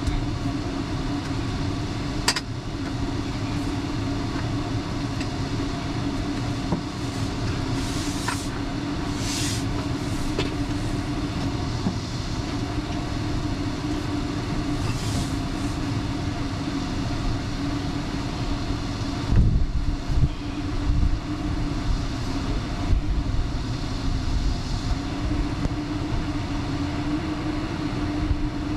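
Power saw running steadily while cutting a wooden board, its motor giving a constant hum, with a few brief knocks late on.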